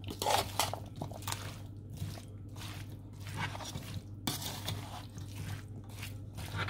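A spoon stirring a thick, wet, yogurt-coated mix of chickpeas, potato and chopped vegetables in a stainless steel bowl: irregular squelching strokes, with the spoon scraping against the metal bowl.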